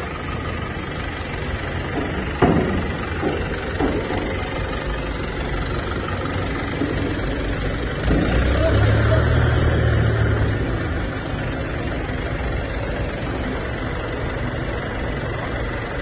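Forklift engine idling steadily, with a sharp knock about two seconds in. From about eight seconds in, the engine runs louder for around three seconds before settling back.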